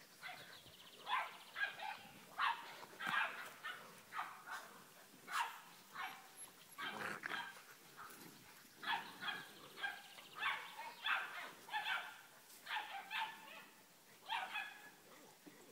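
Dogue de Bordeaux puppies barking and yapping while they play, a long string of short barks with brief pauses between.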